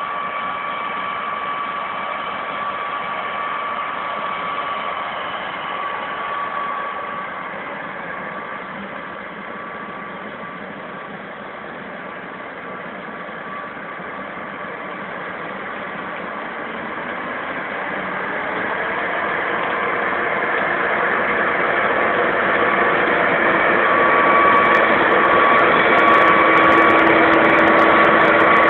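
John Deere 9965 cotton picker running in a cotton field: a steady machine drone with a high whine held over it. It grows steadily louder over the second half as the picker comes closer.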